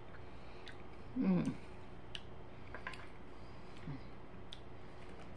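A woman humming "mmm" while tasting chocolate: one hum falling in pitch about a second in and a shorter low hum near four seconds, with scattered faint clicks between them.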